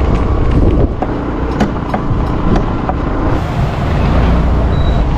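A motorcycle on the move, with wind rushing over the microphone and road rumble, and a few faint clicks.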